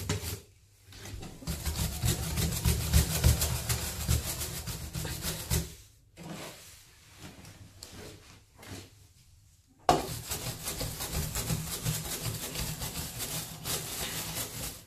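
Scrubbing brush scrubbed rapidly back and forth on the spa bath's surface around a jet nozzle. There are two spells of fast strokes with a quieter pause in the middle.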